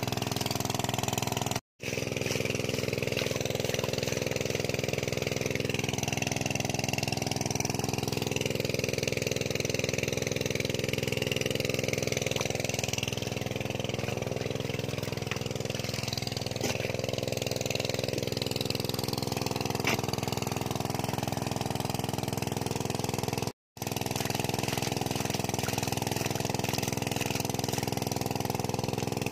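A motor engine running steadily at one speed, broken twice by a momentary cut to silence.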